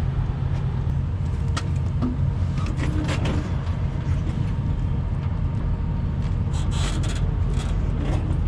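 Steady low rumble of idling diesel semi-truck engines, with scattered light clicks and clanks of tools being handled.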